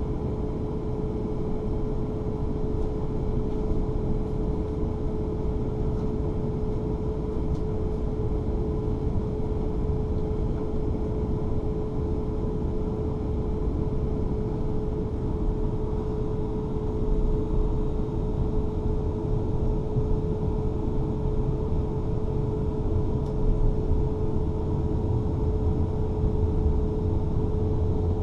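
Cabin sound of a Class 444 Siemens Desiro electric train pulling slowly away: a steady electrical hum at one pitch over the low rumble of the running gear, the rumble growing a little near the end.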